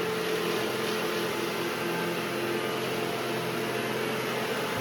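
Robot vacuum cleaners running: a steady whir of suction motors and brushes, with a few held hums underneath.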